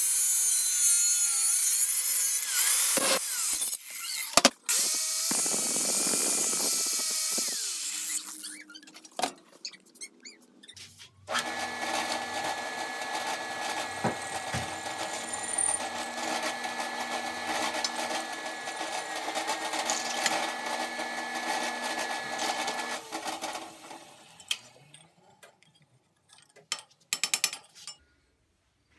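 An angle grinder with a cutoff wheel cutting through a steel part in a vise, its pitch wavering under load, for the first several seconds. About eleven seconds in, a drill press starts and runs steadily, drilling holes in a steel plate, then spins down a few seconds before the end, followed by a few light clicks.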